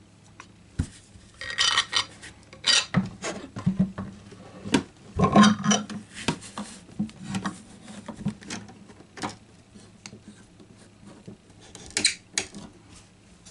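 Wooden binding clamps being handled and set against the edge of an acoustic guitar's body: a scatter of clicks, knocks and light rubs, loudest about five seconds in.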